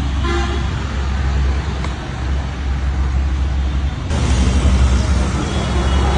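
Motor vehicle running with a steady low rumble and road-noise hiss, growing louder and fuller about four seconds in.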